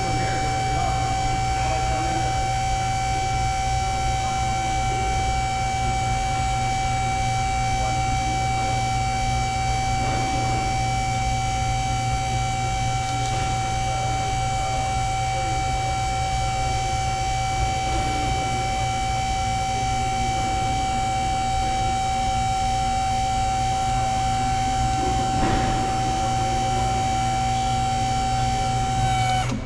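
Steady mechanical whine on one unchanging pitch with its overtones, over a low hum, with a few faint knocks now and then; it cuts off suddenly near the end.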